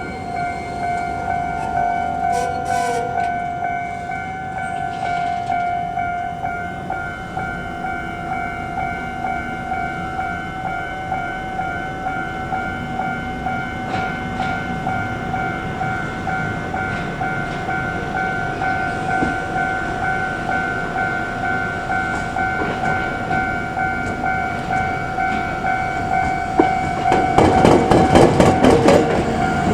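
Botchan Ressha diesel train running, heard on board: a steady whine over rumbling running noise. Near the end the wheels start a fast, loud clatter over the rails.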